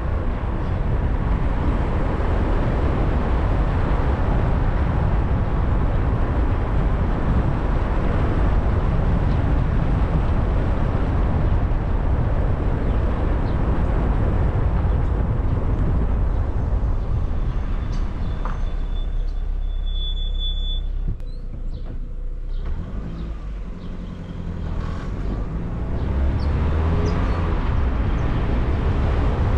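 Car driving, with steady engine and road noise that eases off about two-thirds of the way through as it slows. The noise then builds back up near the end as it speeds up again.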